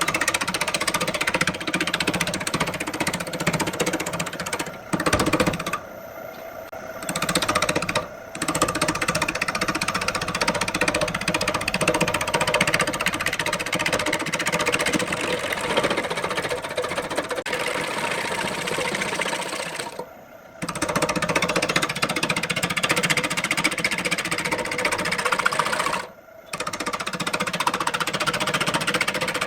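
Wood lathe running with a turning tool cutting into the spinning wood blank, a dense rattling cutting noise over the steady machine hum. It breaks off abruptly a few times and starts again.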